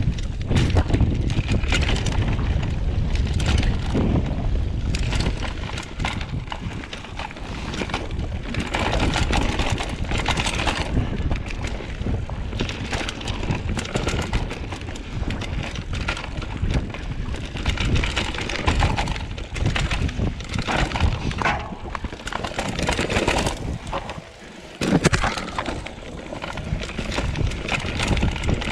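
Mountain bike riding down a dirt trail: tyres rolling over rough ground, the bike clattering and rattling over bumps, with wind buffeting the microphone. Near the end it goes briefly quieter, then a sharp clatter.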